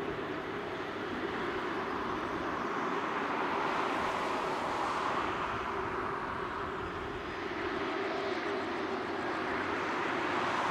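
Jet engines of an Airbus A350 (Rolls-Royce Trent XWB) at high power as the airliner departs: a steady rushing jet noise that swells slightly about halfway through and again near the end.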